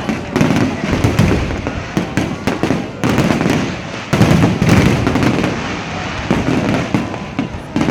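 Fireworks display: a dense, unbroken run of bangs and crackles, shells bursting one on top of another.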